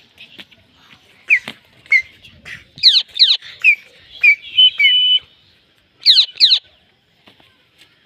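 Indian ringneck parakeet giving a series of about nine sharp, high whistled calls that sweep quickly downward in pitch, several in quick pairs, with one whistle held steady for about half a second near the middle.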